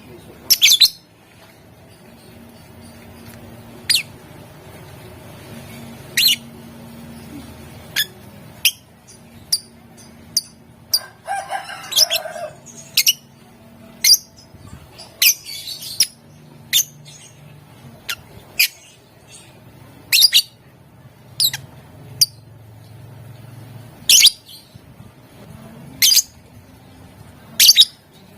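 Lovebird giving short, shrill, piercing calls, one every second or two, with a brief burst of chattering about twelve seconds in.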